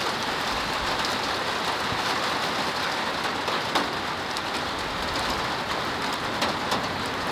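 Steady rain falling and splashing on wet paving, with a few sharper single drop hits here and there.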